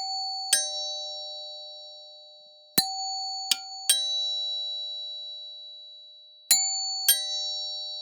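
Railway ATS warning chime in a train cab, struck several times at uneven intervals: each strike sounds a two-note ding-dong of bright ringing tones that fade slowly. It is the ATS alarm, the warning that sounds when the train is approaching a restrictive signal.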